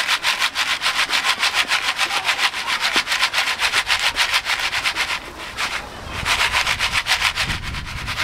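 Foil pan of stovetop popcorn being shaken back and forth over a charcoal grill: a steady rasping rhythm of about seven strokes a second, easing off briefly about five seconds in.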